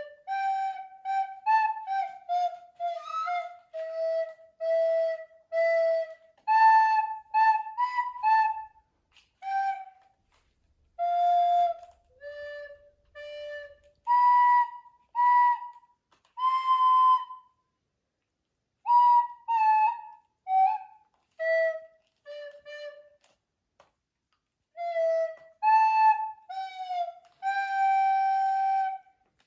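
A child playing a slow Christmas tune on a recorder, one clear note at a time with short breaks between notes and a few longer pauses, as in a beginner's careful playing. The longest held note comes near the end.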